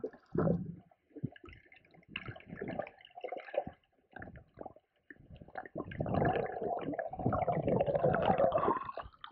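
Water sloshing and gurgling close to the microphone in irregular splashes, thickening into a steadier rush about six seconds in.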